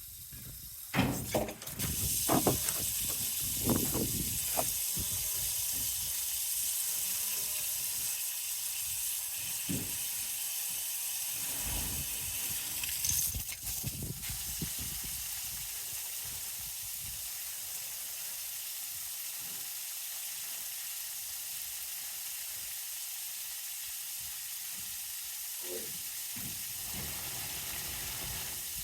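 Water running with a steady hiss, starting about two seconds in after a few knocks, with more knocks a little before the halfway point.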